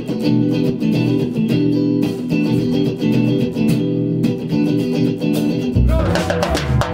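A live band playing: electric guitar and bass guitar play a repeated riff, and a drum kit comes in with kick drum and cymbals near the end.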